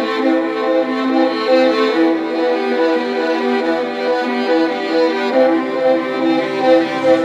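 Background music: a violin-led bowed string melody of held notes stepping from one pitch to the next.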